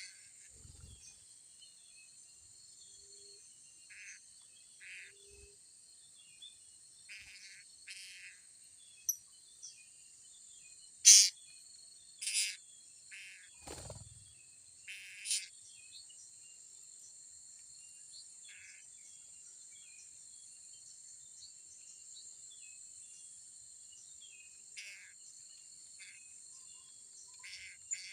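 Steady high-pitched insect drone with short, shrill calls of blue-crowned hanging parrots (serindit) breaking in at irregular intervals, the loudest about 11 seconds in. A dull low thump comes a little before the middle.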